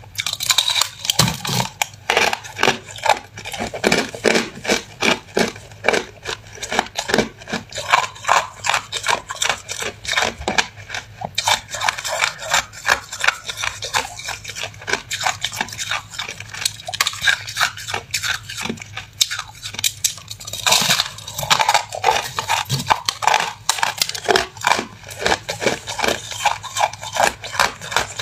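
A person biting and chewing hard ice, a continuous run of sharp, crisp crunches several a second.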